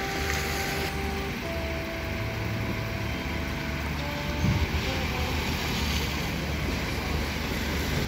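Night street ambience: a steady low rumble of traffic with wind on the microphone, faint sustained musical notes changing pitch every second or two, and a brief thump about four and a half seconds in.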